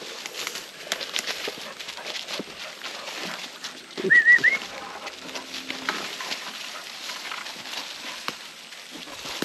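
Footsteps crunching and rustling through dry leaf litter and brush along a woodland trail. About four seconds in, a short, high, two-note chirp is the loudest sound.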